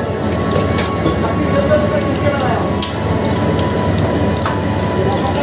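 Food sizzling in a wok over a lit gas wok burner, a steady rush of noise, with a couple of sharp clinks of the metal ladle against the wok.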